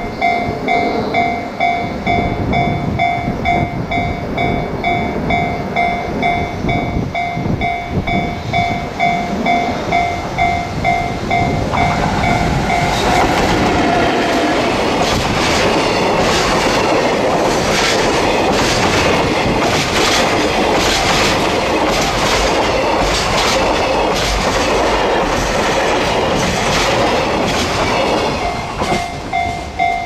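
Freight train of tank wagons passing close by. It grows from a distant rumble into a loud roll about twelve seconds in, with a steady clickety-clack of wheels over rail joints for most of the pass, and dies away near the end.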